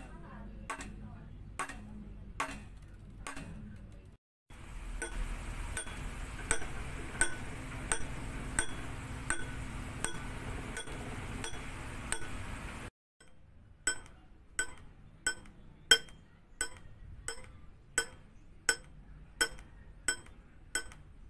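A metal fork tapping steadily on a tin can and then on bowls, one short metallic clink about every 0.7 seconds. The tapping breaks off briefly about four seconds in and again about thirteen seconds in.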